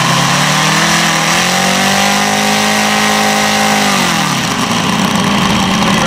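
OS five-cylinder four-stroke radial engine of a 1/5-scale Westland Lysander model plane, run up on the ground with the plane held back. Its pitch climbs from idle, holds high for a couple of seconds, then drops back to idle about four and a half seconds in.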